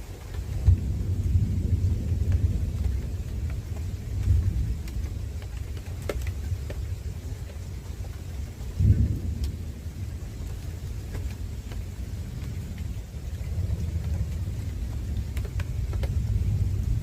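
Thunderstorm: thunder rumbling low and continuously in rolling waves, swelling about a second in, around four seconds and sharply about nine seconds in, over a faint steady hiss of rain.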